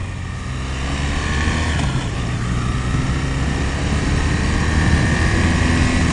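Motorcycle engine running under way, getting gradually louder as the bike accelerates.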